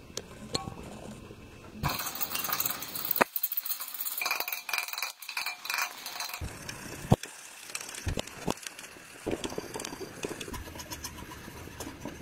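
Metal parts clinking and knocking as they are handled, with a few seconds of scratchy, hissy noise in the middle.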